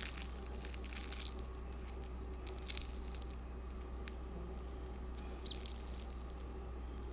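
Crisp crust of a pan-fried potato cake crackling as fingers squeeze and tear it open, in three short bouts of crackling over a steady low hum.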